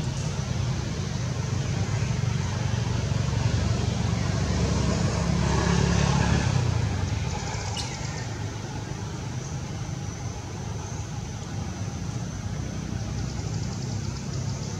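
Low engine rumble of a road vehicle, swelling to its loudest about six seconds in and then dying back down, as if it passes by. A brief click comes about eight seconds in.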